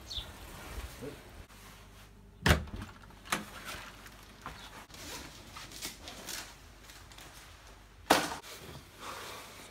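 Knocks and bangs of someone coming in through a door: a loud bang about two and a half seconds in and another, the loudest, about eight seconds in, with a smaller knock and lighter rattles between.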